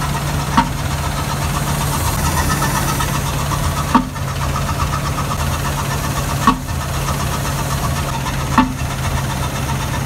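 A Ford 6.2-litre V8 idling roughly with a misfire, with four sharp pops spaced a few seconds apart. The pops are back popping through the open intake and air filter, the sign of a bad misfire, here caused by a broken exhaust valve spring.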